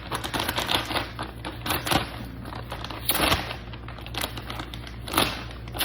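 Packaging being sawn open with a blade and pulled apart: irregular crinkling and scraping, with many sharp crackles.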